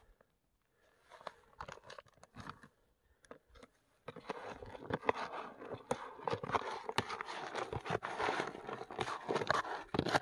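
A plastic scoop on a handle stirring and scraping through a bucket of carp bait (pellets, hemp seed, sweetcorn and method mix), a dense crunchy rattling and rustling that sets in about four seconds in. Before that only faint rustles and clicks of dry mix being poured in.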